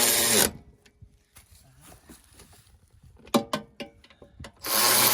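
Long-neck power tool running in two bursts. The first winds down about half a second in, the second starts near the end, and a few sharp clicks come in between.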